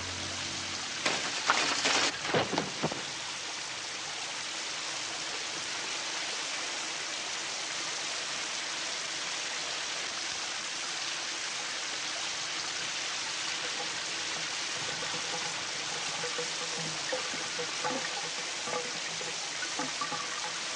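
Shower spray running steadily into the tub. About a second in comes a short burst of sharp clattering and ripping as the shower curtain is pulled down off its rod.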